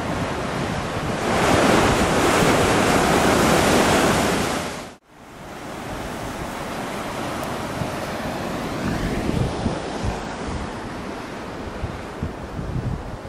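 Sea surf washing over coastal rocks, with wind gusting on the microphone. The sound is loudest in the first few seconds, drops out abruptly for a moment about five seconds in, then carries on steadier and quieter, with low wind rumbles near the end.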